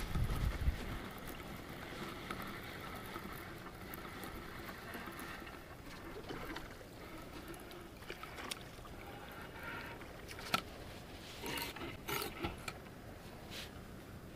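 A small hooked bream splashing at the water's surface as it is reeled in, with a few short sharp splashes in the last few seconds as it is lifted out, over faint lapping water. A low rumble of wind on the microphone at the very start.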